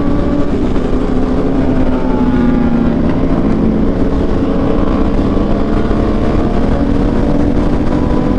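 Sport motorcycle engine running steadily under way, its note sagging slightly and picking back up about two to three seconds in, over steady wind rush.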